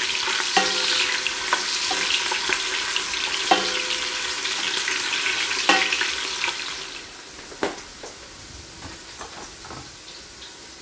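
Sliced onions sizzling in hot sunflower oil in a stainless steel pot as they are stirred with a spoon, which knocks against the pot with a ringing clank three times. About six and a half seconds in, the sizzle drops to a fainter hiss.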